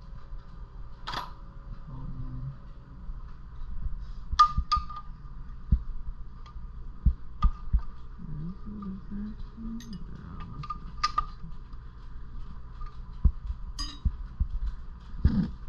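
Scattered metal clinks and knocks of hand tools and sockets being handled while working on a small engine, with a faint steady hum underneath.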